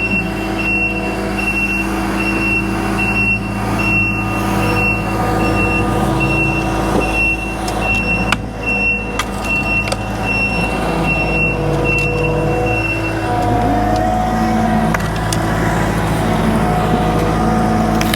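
Takeuchi tracked skid steer's diesel engine running, with its reversing alarm beeping steadily as the machine backs up. The beeping stops about 13 seconds in and the engine note changes.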